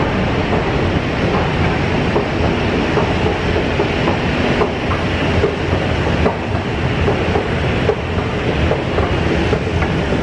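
Escalator running: a steady mechanical rumble with irregular clicking and clacking from the moving steps.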